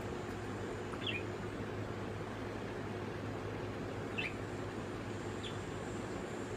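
Budgerigars giving three short chirps that drop in pitch, about a second in and twice more later, over a steady low background hum.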